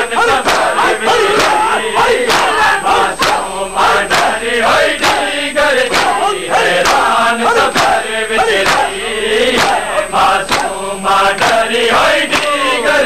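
A crowd of mourners chanting a noha while beating their chests in unison (matam). The hand slaps land about twice a second under the chanting.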